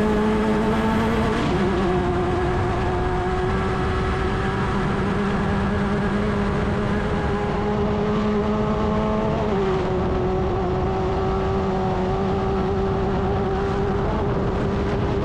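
Class 10 off-road race car's engine running hard at a steady high pitch, its note dropping a step twice, about a second and a half in and again about halfway through.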